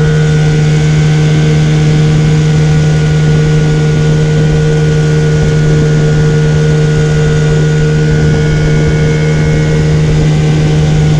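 Boat motor running steadily at a constant speed, a loud, even drone that holds one pitch throughout.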